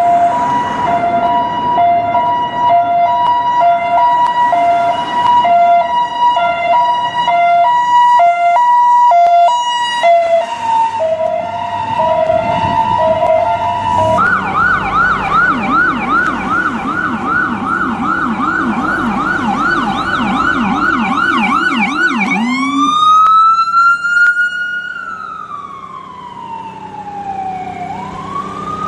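New York ambulance siren switching through its patterns. For about the first fourteen seconds it is a two-tone hi-lo. It then changes to a fast yelp, about three sweeps a second, with a second, lower-pitched yelp under it. From about twenty-two seconds in it is a slow wail that rises, falls gradually and starts rising again near the end.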